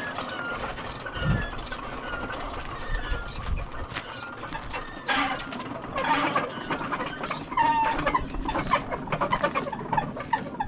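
A row of metal Tibetan prayer wheels being spun by hand one after another, their spindles creaking, squeaking and clicking as they turn.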